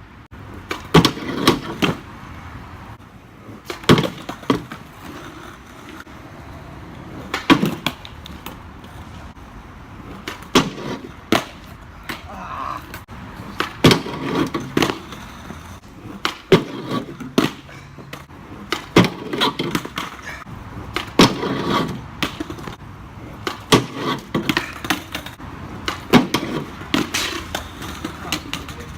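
Skateboard being ridden: wheels rolling, broken every two or three seconds by sharp clacks and slaps of the board hitting the ground as tricks are tried over and over.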